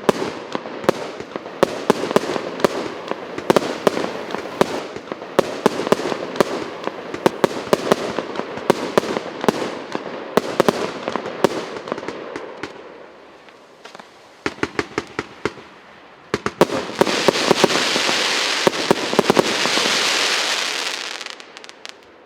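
A 99-shot, 1.25-inch firework cake firing rapid salvos of shots, one bang after another, for about thirteen seconds. After a short lull and a quick burst of bangs, a loud hissing crackle with more pops runs for about five seconds, then dies away near the end.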